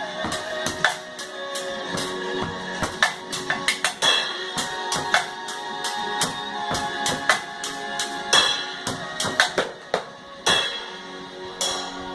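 Percussion played on tin cans: quick, irregular sharp strikes over a backing track with held chords.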